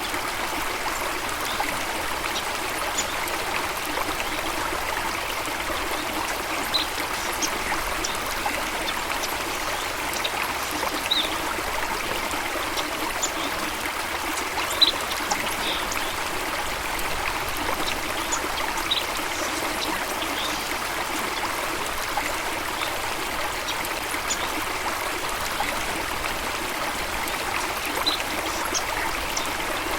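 Running water of a stream, a steady even rushing, with a few brief faint high-pitched sounds scattered through it.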